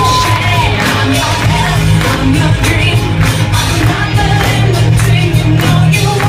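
Loud pop song with a singing voice over a steady bass line and drum beat; the singer holds a long note at the start.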